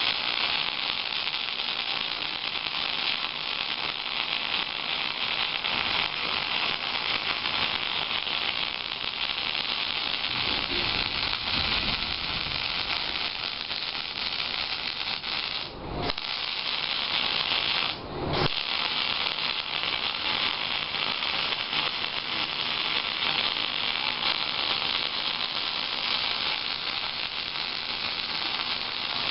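Miller 251 MIG welder's arc crackling and buzzing steadily as a bead is run on a dozer blade, the arc breaking off twice for a moment past the middle before it is struck again.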